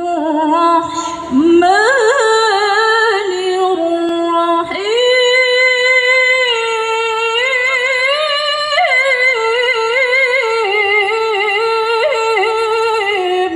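A single unaccompanied voice chanting in long, ornamented held notes through the stage loudspeakers: melodic Quran recitation (tilawah).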